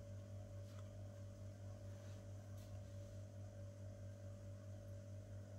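Faint, steady low hum of running aquarium equipment, with a few faint clicks.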